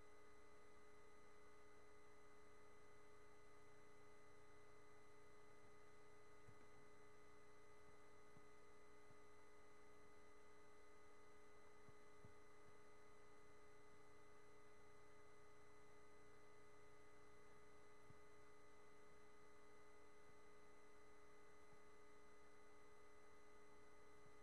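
Near silence: a faint, steady electronic hum made of several fixed tones over a low hiss, the self-noise of a webcam's microphone, with a few faint ticks.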